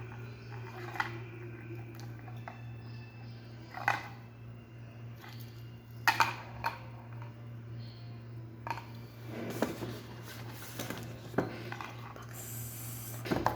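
Scattered light clicks and clinks as a newly unboxed metal wristwatch and its box are handled, with a brief cluster of rattling clinks about two-thirds of the way through.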